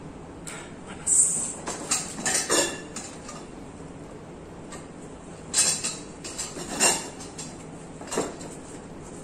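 A corrugated cardboard box being opened by hand, its flaps pulled apart and scraped. The rustling, scraping and short knocks come in two spells, about a second in and again past halfway, with one more knock near the end.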